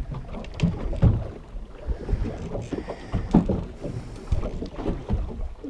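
Wind rumbling on the microphone and water slapping against the hull of a small fishing boat, with irregular knocks and thumps. The loudest come about a second in and again just past three seconds.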